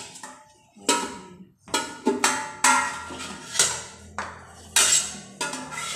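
A metal spoon and a stainless steel pot lid clanking against the cooking pot: a series of sharp, unevenly spaced metallic clanks, each ringing briefly.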